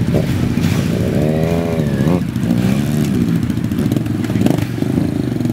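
Several sport motorcycle engines idling together, warming up. One engine is revved up and back down, twice in quick succession.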